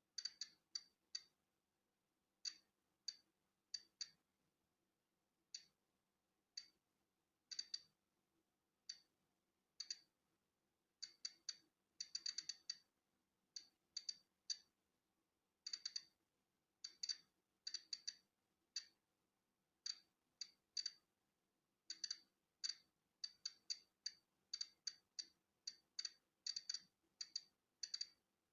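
Polon EKO-C digital Geiger counter clicking at random, irregular intervals, about two clicks a second, sometimes several in quick succession. Each click is one detected count of natural background radiation.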